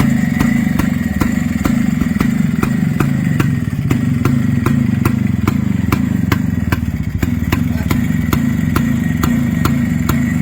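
A 1970s motorcycle engine running steadily through its stock exhaust, with regular sharp ticks about three a second.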